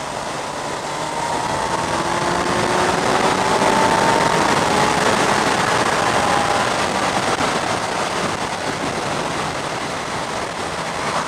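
Wind rush and road noise on the microphone of a Kawasaki Z1000SX at speed, with the inline-four engine note faintly rising in pitch as the bike accelerates. The sound swells to its loudest in the middle, then eases off.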